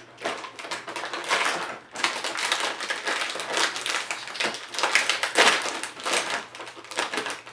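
Shiny foil-like plastic cookie bag crinkling and rustling in irregular crackly bursts as it is handled and pulled out of its cardboard box.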